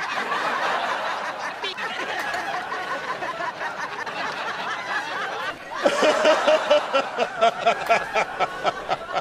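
Several men laughing together at a table, then about six seconds in one man laughing hard and loud in rapid, repeated ha-ha-ha pulses.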